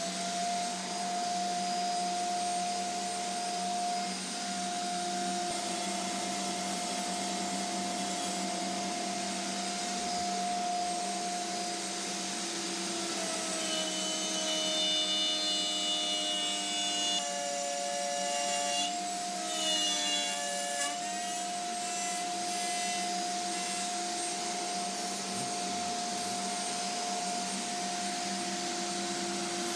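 Handheld wood router running, plunging into and cutting a circular groove in a wooden disc, with a steady high tone over the hiss of the cut. Partway through, the pitch dips and wavers for several seconds as the bit takes load, then steadies again.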